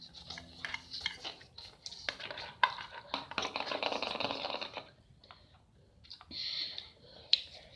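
Cutlery clinking and scraping against a plate while fried noodles are eaten quickly, with a run of scraping in the middle and a sharp clink near the end.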